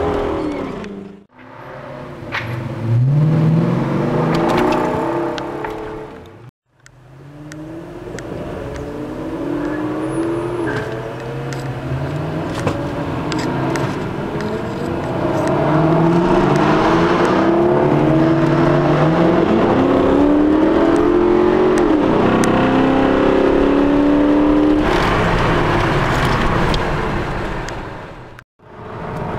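Car engine heard from inside the cabin, accelerating hard and shifting through the gears, its pitch sweeping up repeatedly and then dropping at each shift. The sound cuts out briefly three times.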